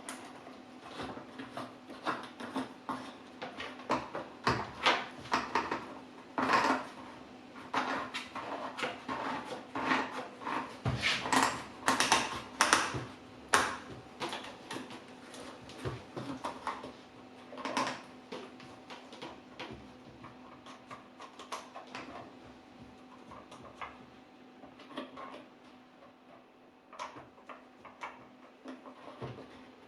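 Clicks, knocks and rattles of plastic and metal parts being handled as the side cover is fitted onto an electric chainsaw and its chain is tensioned. The knocks are busiest in the first half and grow sparser and quieter near the end.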